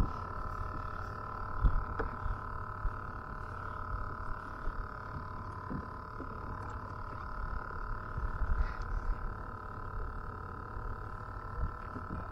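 Wind rumbling on the microphone and small waves slapping a plastic fishing kayak's hull, with a steady faint whine underneath and an occasional light click.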